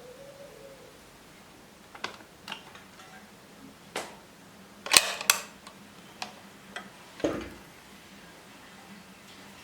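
A run of sharp clicks and taps, as of small hard objects being handled and set down. The loudest is a quick double click about five seconds in.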